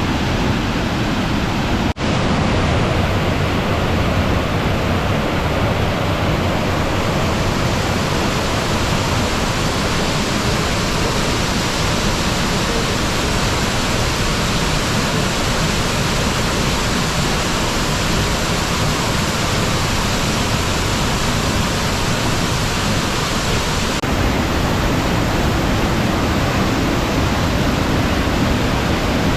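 Steady rushing of falling water at Dry Falls, a waterfall, as an even hiss-like roar. There is a momentary dropout about two seconds in.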